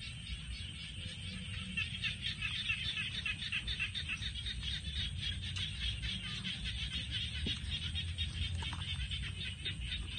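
A dense night chorus of frogs in a rice paddy: many rapid, pulsing calls overlapping, growing fuller about two seconds in, over a low steady rumble.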